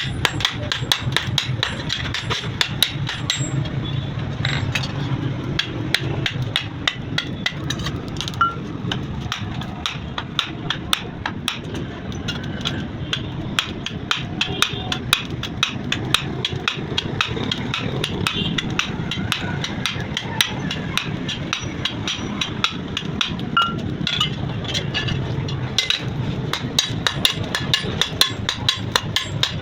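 Hand hammer striking steel on an anvil in a fast, steady run of blows while a knife blade is forged, over a steady low hum.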